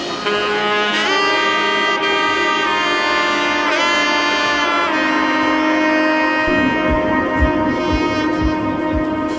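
Background music: a lead melody of held notes with a few sliding bends. A steady low beat comes in about six and a half seconds in.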